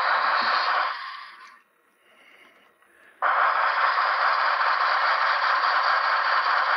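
Steady hiss-like noise from N scale model trains running on the layout. It fades out about a second in and cuts back in abruptly after about three seconds.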